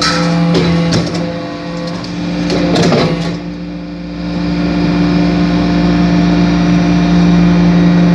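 Hydraulic briquetting press for cast iron chips running, its motor and pump giving a steady hum. Several sharp metallic knocks come in the first three seconds, and the machine grows louder from about four seconds in.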